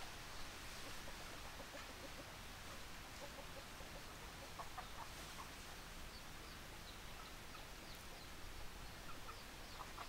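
Chickens clucking faintly while pecking at food, in short runs of quick low clucks, with a few brief higher chirps later on.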